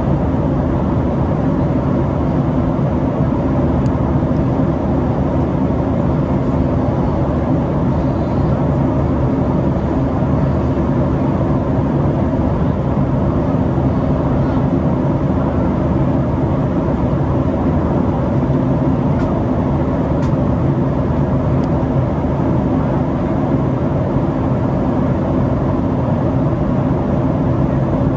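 Cabin noise inside a Boeing 737 at cruise: a steady rush of airflow and engine drone with a constant low hum beneath it.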